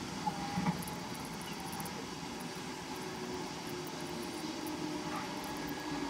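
A steady mechanical background hum, like distant engine noise, with a faint held tone and a few light ticks.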